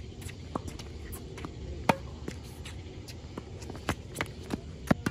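Tennis rally: sharp knocks of racket strings striking the ball and the ball bouncing on a hard court. The loudest knock is about two seconds in, and several more follow in quick succession near the end.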